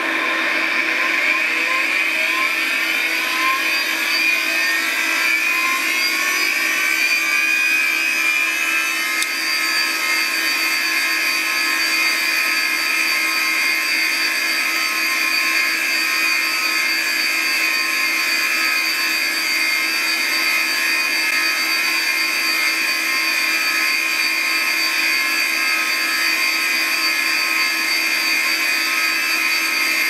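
DEC RZ29B-VA 4.3 GB SCSI hard drive spinning up: a loud whine rises in pitch over about nine seconds, then holds as a steady high whine over a lower hum at full speed. The owner is unsure whether this sound is normal or a sign of a fault, and wonders whether the drive needs cleaning.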